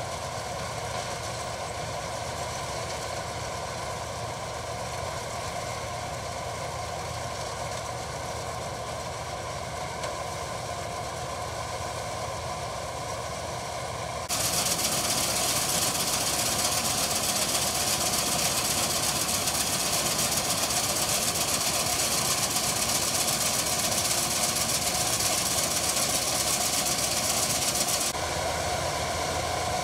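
Combine harvester's engine and threshing machinery running steadily while harvesting wheat. About halfway it cuts to a louder, hissier stretch as grain streams from the unloading auger into a tractor trolley alongside, then drops back near the end.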